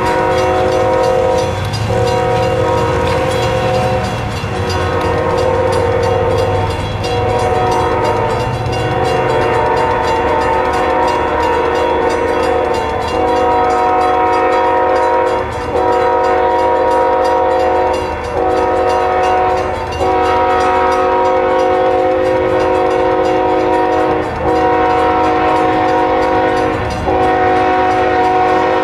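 Horn of an approaching BNSF ES44DC diesel locomotive, blowing a string of long, loud chime blasts separated by brief breaks every two to three seconds.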